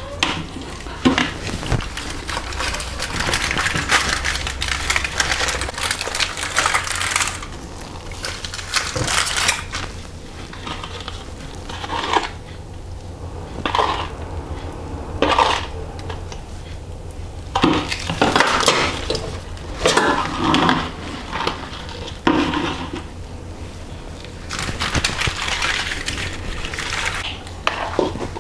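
Aluminium foil crinkling and rustling as raw chicken is turned and pressed on a foil-lined baking tray, with a metal spoon clinking and scraping in a bowl of seasoned oil. The rustling comes in irregular bursts over a steady low hum.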